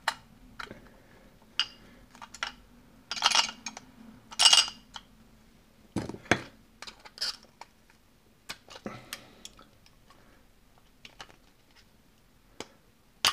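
Irregular metallic clinks, scrapes and knocks as a Burg Wächter Alpha Titan 900 steel padlock is handled and worked on during disassembly. The louder scrapes and knocks fall in the first half, thinning to sparse small clicks toward the end.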